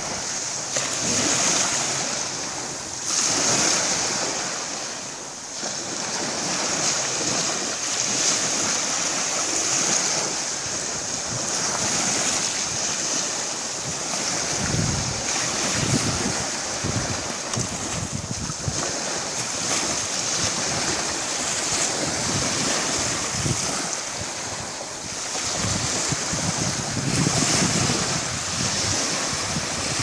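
Small ocean waves breaking and washing up a sandy shore: a continuous wash of surf that swells and eases every few seconds.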